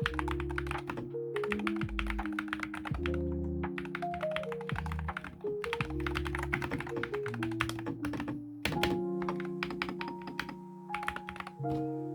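Fast typing on an Akko TAC75 HE magnetic keyboard, its keys giving dense runs of clicks that thin out in the last few seconds, over background music.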